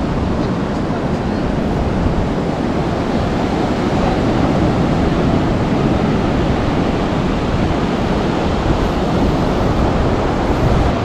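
Surf breaking on the beach together with wind on the microphone, a steady loud rush of noise.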